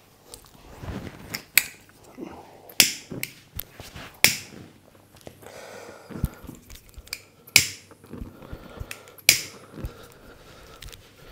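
Head massage: a string of sharp slaps and snaps from the masseur's hands, about five loud cracks at irregular intervals with softer taps and rubbing between them.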